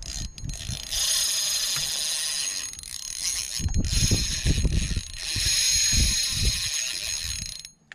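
Fishing reel's drag buzzing as a hooked bull redfish runs and pulls line off the spool. It runs for a couple of seconds from about a second in, pauses briefly, then buzzes again for a longer stretch and cuts off suddenly near the end.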